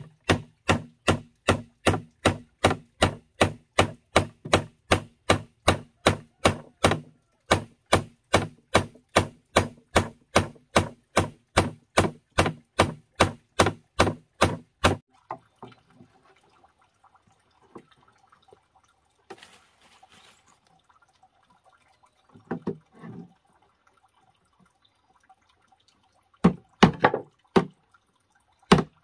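Hammer driving steel nails into wooden boards: a quick, even run of strikes, about three a second, with one short break. About halfway through the strikes stop, leaving a quieter stretch with only a few faint knocks, and a handful of hammer blows come back near the end.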